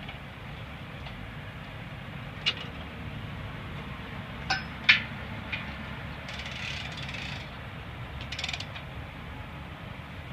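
Steel hitch parts of a yoke carrier clinking and knocking as it is unhooked from a portable hydraulic livestock chute. A few sharp metal knocks come in the first half, the loudest about five seconds in, then a short scraping rattle and a brief clatter, over a steady low outdoor rumble.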